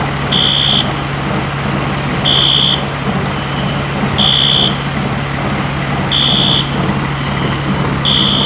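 Building fire alarm sounding: a high-pitched electronic beep about half a second long, repeating about every two seconds, five times. A steady low hum and a constant rushing noise run beneath it.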